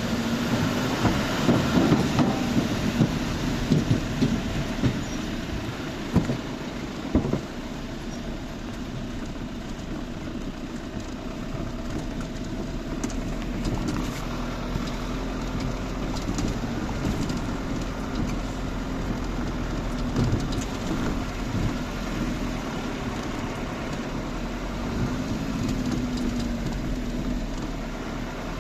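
A vehicle running steadily, with a constant low engine hum under road or running noise and a few sharp knocks in the first several seconds.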